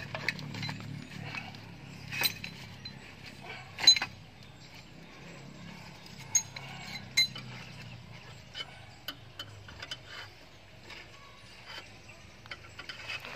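Jack being worked to lift the van at the wheel: mechanical clicking and sharp metal clinks over a low, rough rumble that fades out about ten seconds in. The loudest clinks come about two, four, six and a half and seven seconds in.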